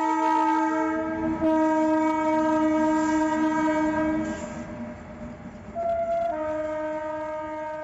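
Indian Railways electric locomotive's multi-tone horn sounding a long blast that stops about four seconds in, then a second long blast opening with a brief single note, over the rumble and clatter of a passing train.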